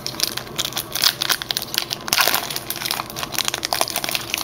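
Foil wrapper of a 2010 Upper Deck Series 1 baseball card pack crinkling and crackling irregularly as hands pull it open.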